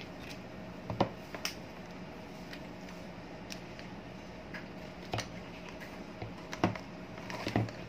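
Scattered clicks and light knocks of a screwdriver and the plastic parts of an electric fan being handled as its motor and blade are taken out, loudest about a second in and near the end, over a steady low hum.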